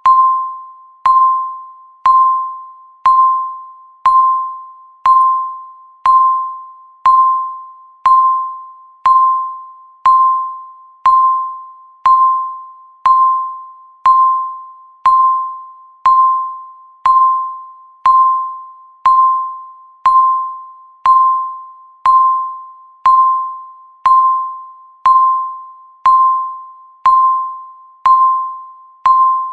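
Countdown timer beep, once every second: a single mid-pitched electronic tone that starts sharply and dies away before the next, ticking off the seconds left.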